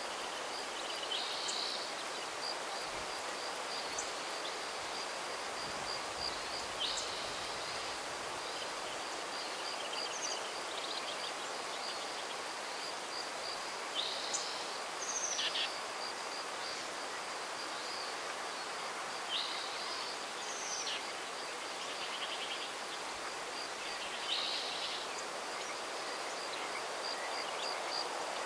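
Outdoor spring ambience: a steady breeze through trees, a bird singing a short phrase about every five or six seconds, and a continuous high, fast-pulsing trill running underneath.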